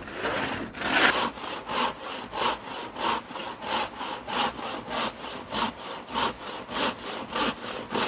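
Freshly sharpened and set old two-man crosscut saw cutting through a log, worked by one person in quick, even rasping strokes, about one and a half strokes a second.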